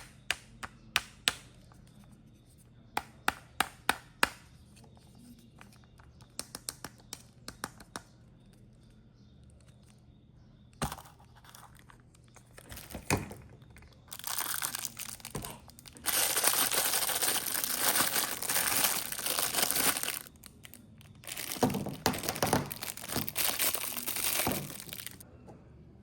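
Toy packaging being opened by hand: a run of sharp plastic clicks and snaps, then, about halfway through, long spells of plastic wrapping crinkling and tearing.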